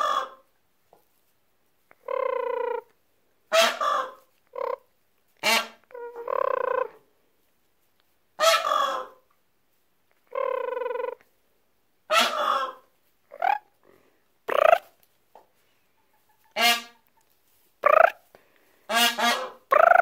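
Young peafowl giving alarm honks: about fifteen loud separate calls, a second or two apart, some short and sweeping, a few held flat for most of a second.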